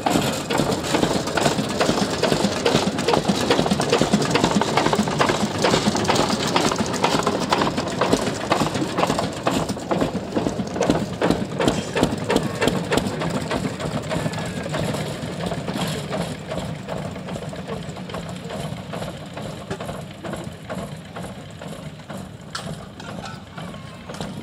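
1940 Ruston & Hornsby narrow gauge diesel locomotive's engine running with a rapid, even knock as the loco pulls away, growing fainter over the second half.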